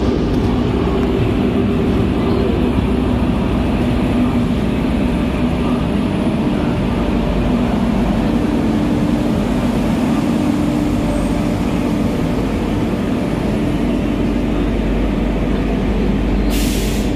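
Indian Railways passenger coach running slowly on the track, a steady rumble of wheels and running gear heard from the open coach doorway, with a faint hum underneath. A brief hiss near the end.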